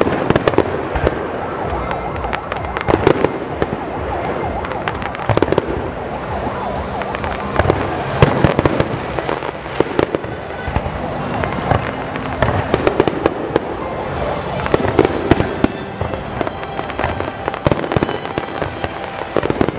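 Fireworks display: aerial shells bursting one after another, with repeated sharp bangs over a continuous crackle.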